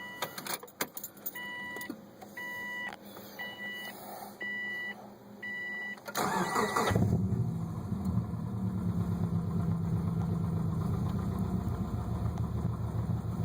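An electronic chime beeps about once a second with a few clicks, then the 2005 Subaru Forester's flat-four boxer engine cranks briefly about six seconds in, catches and settles into a steady idle with a low rumble through its MagnaFlow aftermarket exhaust, heard from inside the cabin.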